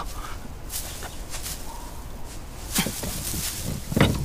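Footsteps and the rustle and crunch of dry straw being handled: a handful of separate sharp steps and crackles, the strongest near the end.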